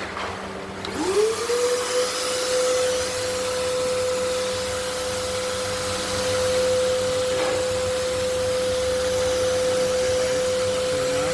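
Nilfisk Buddy II vacuum cleaner's AC motor switched on about a second in, spinning up quickly to a steady whine over a rush of air. This is its test run after being cleaned and reassembled.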